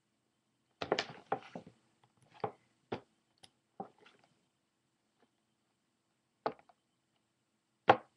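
A cardboard toy box with a clear plastic window being handled and moved about: a cluster of short knocks and clicks in the first four seconds, then two more later, the last the loudest.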